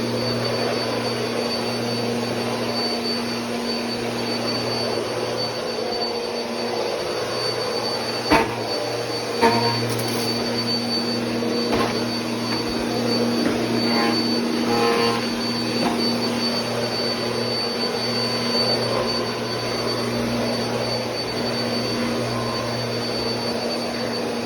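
Bissell PowerForce Compact Turbo upright vacuum running steadily: a constant motor hum with a thin high whine. Two sharp knocks come about eight and nine and a half seconds in.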